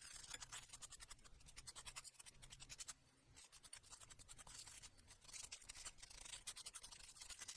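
Faint, rapid scratching of a bristle cleaning brush scrubbing coffee grind residue off a Mazzer Mini D grinder's steel grinding burr, in quick strokes several a second, with a short pause about three seconds in.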